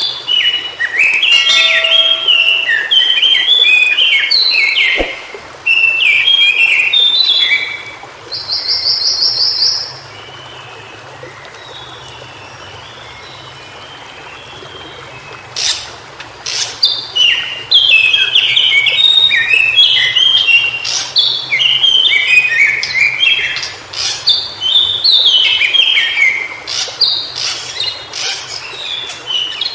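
White-browed shortwing singing: rapid, jumbled phrases of high warbling notes, breaking off for several seconds in the middle before it starts again. A short, even buzzy trill is heard just before the pause.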